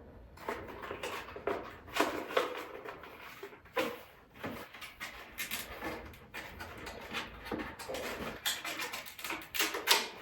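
Unboxing handling noise: irregular knocks, clicks and rustles as a boxed launch monitor's accessories and packaging are handled and taken out.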